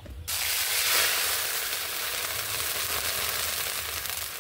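Hot wok over a wood fire sizzling as food hits the hot oil, starting suddenly about a quarter of a second in, loudest about a second in, then easing a little and sizzling on steadily.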